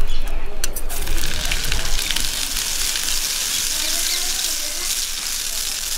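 Hot oil sizzling in a smoking iron kadai on a wood-fired clay stove. It breaks out suddenly about a second in as something is poured into the pan and then keeps up as a steady hiss.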